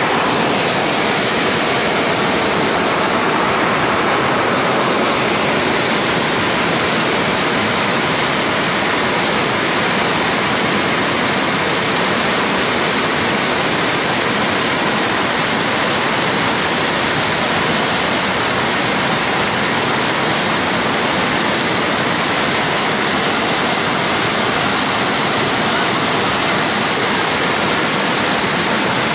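A river in flood rushing and churning at full spate, a loud, steady wash of water noise with no let-up.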